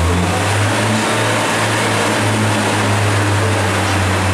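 Class 142 Pacer diesel railcar idling, its underfloor diesel engine giving a steady low drone.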